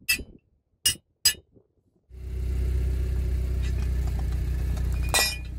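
A toy xylophone's metal bars are struck three times with short clinks in the first second and a half. About two seconds in, a car engine starts running steadily and low as the tyre rolls onto the toy. Just past five seconds there is a single sharp crack as the xylophone breaks under the wheel.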